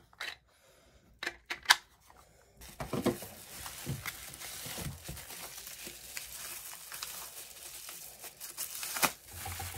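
A few light clicks and knocks of mold pieces being handled, then from about two and a half seconds in, steady crinkling and tearing of packaging as a separately wrapped bath bomb mold is unwrapped.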